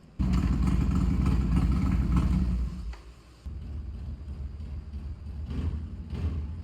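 Harley-Davidson Sportster 1200 Sport's V-twin engine running, with the clutch being tried out. It comes in loud and steady for about two and a half seconds, drops away for a moment about three seconds in, then runs on more quietly and unevenly.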